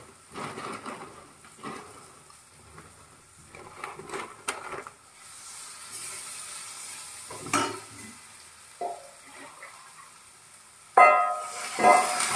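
A few faint crinkles and utensil knocks, then about eleven seconds in water is poured from a jug into a hot kadai of onion-tomato masala and hits it with a sudden loud sizzling hiss.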